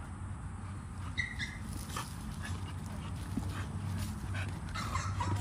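American bully dogs play-fighting, with a short high whine about a second in and a few faint scuffles, over a steady low hum.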